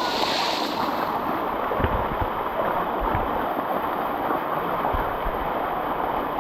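Waterfall water rushing steadily down rock cascades, with a few brief low thumps, likely on the microphone, about two, three and five seconds in.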